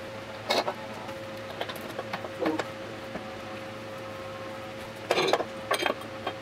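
Ceramic tea-cup planters knocking and clinking against a wooden board and its mounting screws as they are hung on it: a few light knocks, with the loudest cluster a little after five seconds in.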